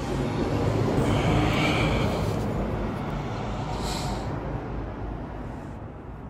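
A passing vehicle: a rushing noise that builds over the first second or two and then slowly fades away.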